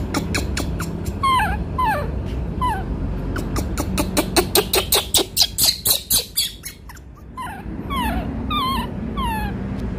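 Baby macaque giving repeated short, high squeaks that slide down in pitch, with a quick run of sharp clicks in the middle.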